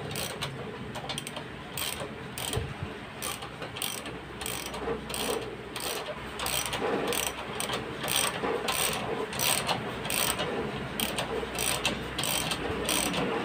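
Socket ratchet wrench clicking in repeated strokes, a few clicks a second, as it turns the threaded rods of a coil-spring compressor to compress a motorcycle rear shock spring.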